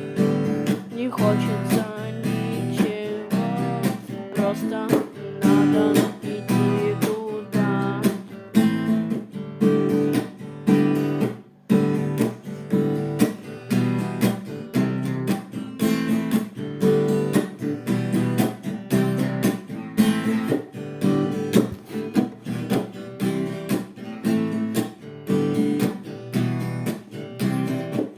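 Instrumental guitar music: chords strummed on guitar in a steady rhythm, with no singing.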